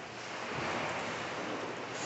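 Pool water splashing and sloshing steadily as a swimmer paddles through it on a foam pool noodle.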